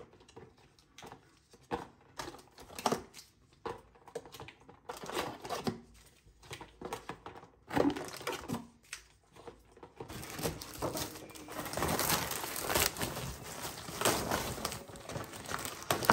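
Plastic bags and packaging rustling and crinkling, with scattered light knocks, as groceries are unpacked; the rustling becomes denser and louder about ten seconds in.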